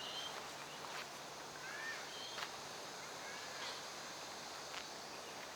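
Quiet outdoor ambience: a few faint, short bird chirps and soft footsteps about a second apart.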